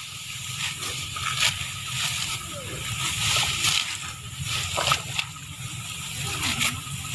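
Dry rice stalks rustling and crunching as they are cut and gathered by hand, with short crisp snaps every second or so over a steady rustle. Faint voices of other harvesters are heard a few times.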